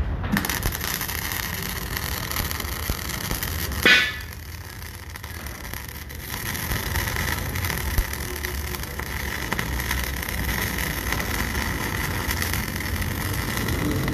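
MIG welding arc crackling and hissing steadily as weld is laid onto a steel shaft. About four seconds in there is a sharp loud crack, then the crackle drops back for a couple of seconds before building up again.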